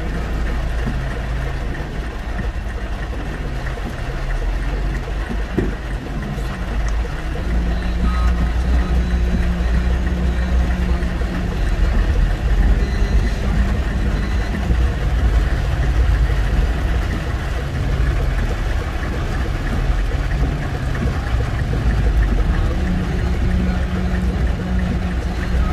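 Heavy rain falling on a car and the car moving slowly through floodwater, heard inside the cabin as a steady noise with a deep low hum from the engine and tyres.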